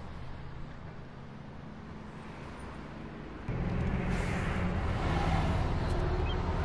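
Audi S4's turbocharged V6 engine running steadily at a distance. About halfway in it grows sharply louder as the car drives past close by, engine note and tyre noise together.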